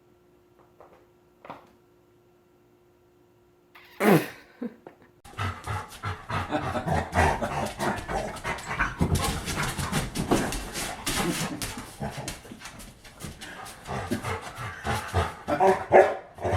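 Dogs growling, barking and panting continuously, after a loud cry that falls sharply in pitch about four seconds in; the first four seconds are near silent.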